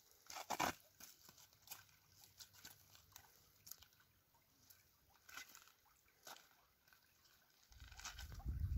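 Footsteps in flip-flops on loose stones and pebbles: scattered faint crunches and clicks of rock shifting underfoot. A louder low rumbling noise starts near the end.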